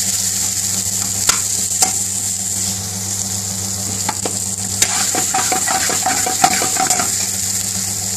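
Meat and onions sizzling in a hot frying pan while a long metal spoon stirs and scrapes through them, with sharp clicks each time the spoon knocks the pan. A steady low hum runs underneath.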